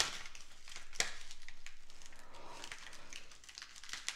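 Packaging on a trading-card repack box crinkling and tearing as it is sliced and pulled open, with a sharp snap at the start and another about a second in.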